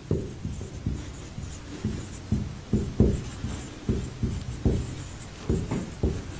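Marker writing on a whiteboard: a string of short, irregular taps and strokes of the pen tip against the board.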